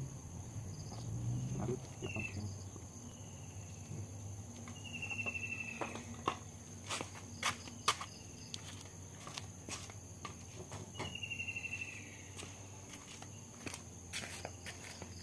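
Footsteps and shuffles in rubber slides on a concrete floor, with scattered sharp clicks and knocks, the loudest about halfway through. Behind them, a small animal gives several short chirping trills that fall slightly in pitch, two longer ones near the middle and again later.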